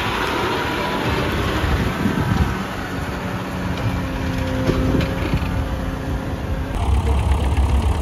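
John Deere 6155R tractor engine running steadily as it pulls a reversible plough through stubble. Near the end the sound cuts to a deeper, pulsing low rumble.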